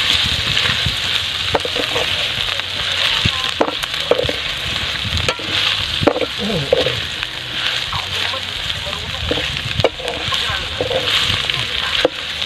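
Snail meat sizzling as it fries in a metal pan over a wood fire, stirred with a metal spatula that scrapes and clacks against the pan now and then.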